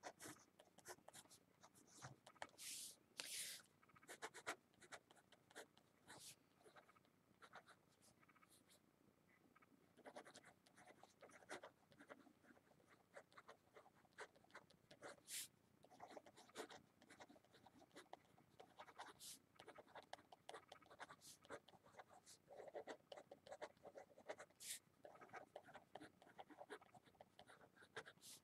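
Pen writing on paper: faint, scratchy handwriting strokes coming in short runs, with a quieter pause about eight seconds in.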